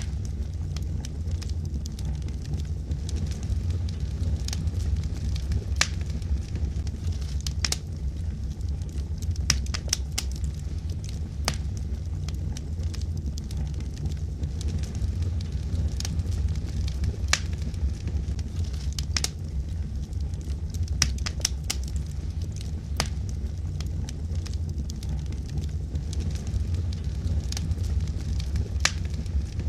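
Wood logs burning in a fireplace: a steady low rumble of flames with irregular sharp crackles and pops from the wood.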